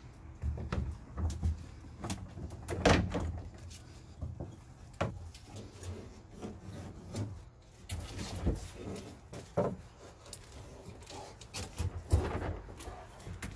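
Irregular knocks and clunks of a plastic wheeled garbage cart as its lid is flipped open, with a louder clunk about three seconds in and another near the end.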